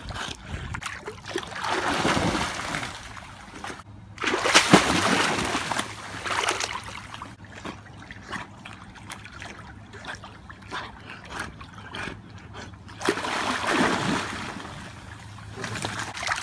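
Pool water splashing and sloshing as a dog swims and paddles, with several louder bursts of splashing, the loudest about four and a half seconds in.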